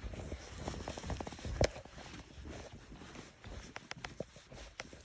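Scattered light knocks and clicks, the loudest a single sharp knock about a second and a half in, with a cluster of smaller clicks near the end.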